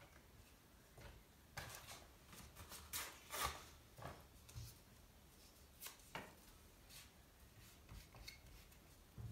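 Quiet, scattered rustles and light taps of card and paper being handled, most of them bunched in the first half, with a few single ticks later.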